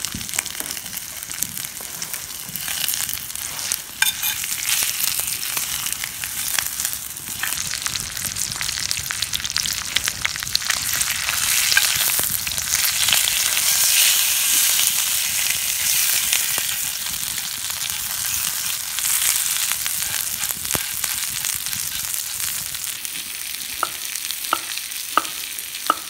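Meat sizzling in butter in a cast-iron frying pan over campfire embers, a steady crackling hiss that grows louder about halfway through as the meat is turned in the pan.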